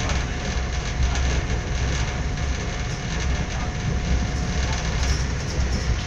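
Moving passenger train heard from inside the carriage: a steady low rumble of wheels on the rails, with a faint steady whine.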